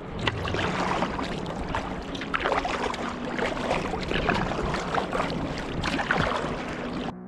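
Double-bladed kayak paddle strokes through sea water: repeated splashes and drips from the blades, with water washing along the kayak's hull. The sound cuts off abruptly shortly before the end.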